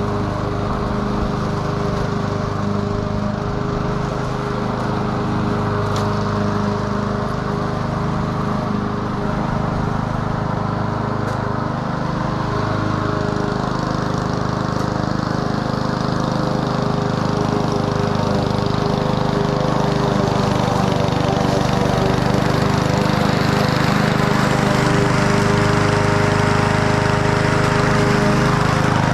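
Honda 21-inch commercial walk-behind mower running steadily while cutting grass, a continuous engine drone that grows a little louder over the last third.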